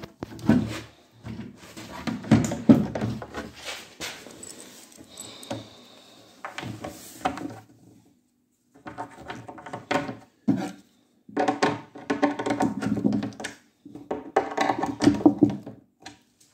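Knocks of pine furniture panels being fitted together. Then a confirmat screw is turned into the pine by hand screwdriver, giving stretches of pitched creaking and squeaking.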